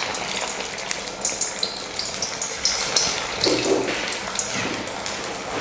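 A freshly dropped aval vada (flattened-rice and roasted-gram patty) sizzling and bubbling in hot oil in a stainless-steel kadai, a steady hiss with scattered crackles.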